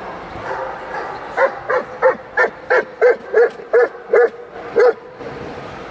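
A dog barking in a quick run of about ten high, yelping barks, about three a second, starting about a second and a half in and stopping near the end.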